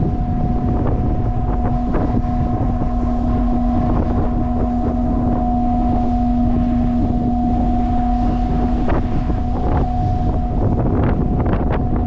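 Wind buffeting the microphone aboard a ship at sea, with frequent short gusts over a steady humming drone from the ship's machinery.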